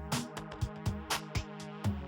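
Electronic background music with a steady, fast drum-machine beat.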